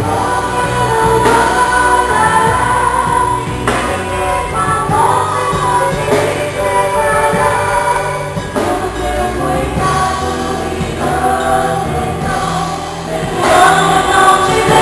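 Gospel worship band rehearsing a song: several voices singing together over the band's bass and percussion, with a few sharp cymbal-like hits.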